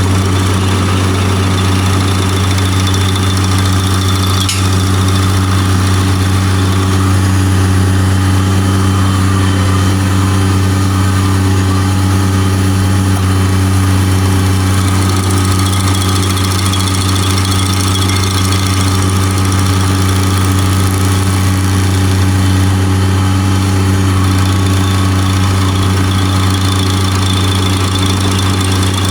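Bobcat MT100 mini skid steer's engine running steadily under load, driving an SG30 stump grinder attachment, with a thin steady high whine over the engine's hum.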